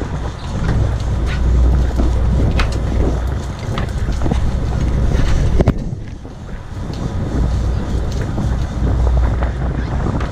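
Wind buffeting the microphone over the rumble of a fishing boat's engine, with scattered clicks and one sharp knock a little past the middle.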